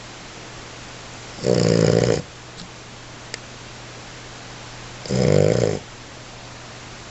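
American Bully puppy snoring in its sleep: two loud snores about three and a half seconds apart, each under a second long.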